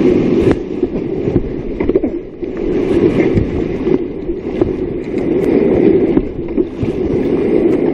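Whitewater rushing loudly around a kayak, with the splash and knock of paddle strokes cutting through now and then.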